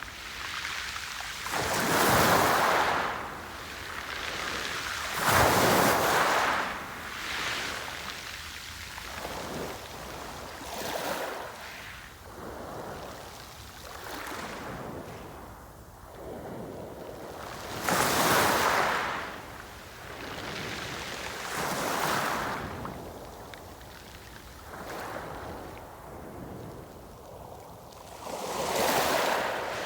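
Sea waves breaking in repeated swells of rushing noise every few seconds, the biggest about two, five and eighteen seconds in and again just before the end.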